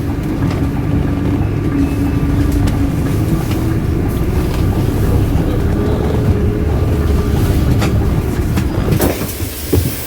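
Coach's diesel engine and road noise heard from inside the passenger cabin while it drives, a steady low drone. Near the end a few knocks sound over it.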